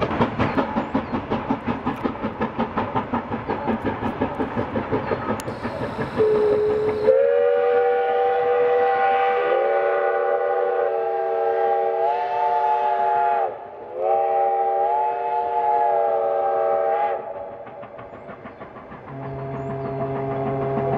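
Steam locomotive of a retro train working past, its exhaust chuffing fast and evenly at about four beats a second, then sounding a loud chord whistle of several notes in two long blasts with a short break between them. A weaker steady low hum follows near the end.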